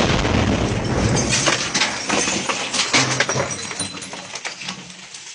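The aftermath of a nearby explosion: a dense crash of falling debris and breaking material with many sharp clatters, fading away over about five seconds.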